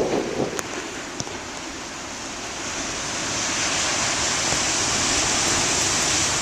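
Heavy storm surf breaking: a steady rush of water that swells louder from about halfway in as a wave comes through, then holds.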